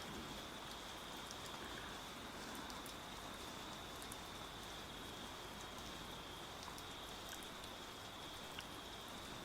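Faint, steady rain ambience: an even hiss of rain with a few scattered light drips.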